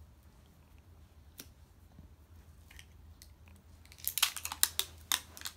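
Plastic wrapping on an L.O.L. Surprise toy ball being bitten and torn open, with sharp crinkling and tearing snaps starting about four seconds in after a few faint clicks.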